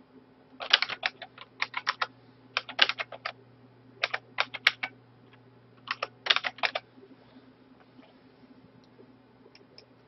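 Typing on a computer keyboard in several quick bursts of keystrokes, stopping about seven seconds in, with a few faint clicks near the end.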